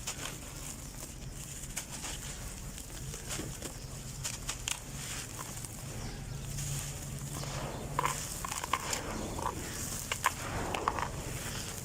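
Lumps of dry red dirt crumbling and crunching: scattered small crackles and crunches that come thicker in the second half.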